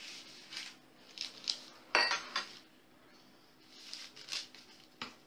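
Several sharp clinks and knocks of a glass bowl being handled on a table, the loudest about two seconds in, between soft rustling of baking paper as strips of bacon are laid out on it.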